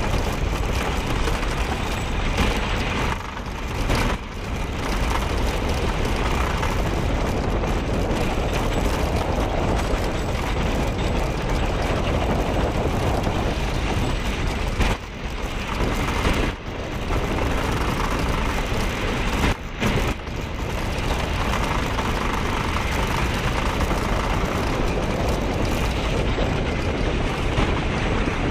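GhostRider wooden roller coaster train running along its track: a steady, loud rushing rumble, heaviest in the low end, that dips briefly a few times.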